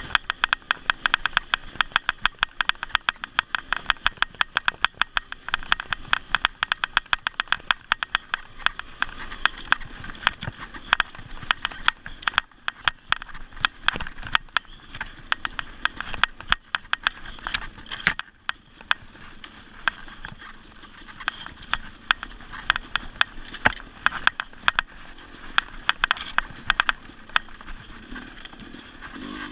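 Off-road dirt bike engine running at low revs along a rocky trail, heard as a rapid, even train of sharp pulses. About halfway through, the pulses thin out and turn irregular for several seconds, then pick up again.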